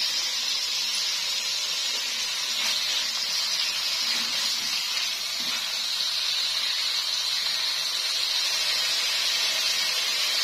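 Boneless chicken pieces sizzling steadily in oil in a non-stick wok over medium heat.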